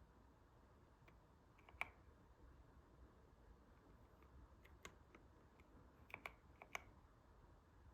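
Faint, scattered clicks of single keys being pressed on a YUNZII C68 mechanical keyboard with milk switches: one sharper click about two seconds in, then a few more in quick pairs in the second half, not continuous typing.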